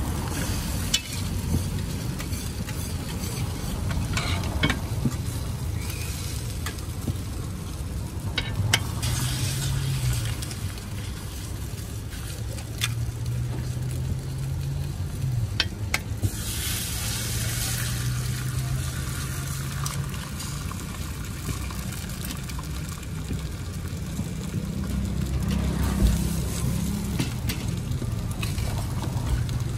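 Burger patties and egg frying on a flat steel griddle, a steady sizzle with sharp clicks and scrapes of a metal spatula on the plate. The sizzle swells louder for a couple of seconds a little past halfway, and a low hum runs underneath.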